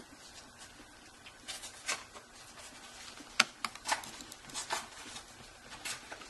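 Small precision screwdriver and fingers driving screws back into an opened Kindle Fire HD tablet's frame: scattered light clicks and taps, the sharpest about three and a half seconds in.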